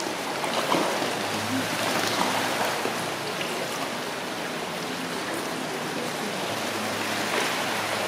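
Steady rush of running water, with small splashes from a king eider drake bathing and preening in the pool.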